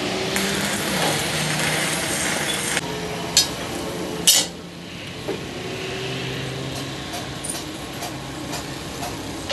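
Metal clinks and knocks from handling a steel truck axle beam, with two sharp knocks about three and a half and four and a half seconds in.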